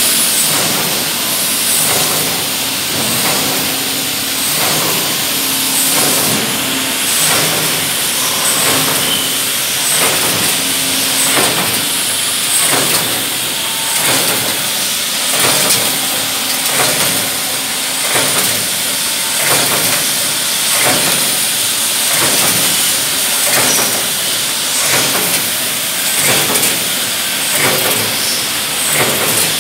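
Automatic pail handle forming machine running through its cycle: a steady hiss with a sharp knock or clack about once a second as each wire handle is formed.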